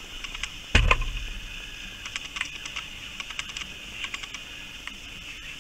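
A wallaby feeding on a scrap on gravel: irregular light clicks and crunches, with one louder thump about a second in.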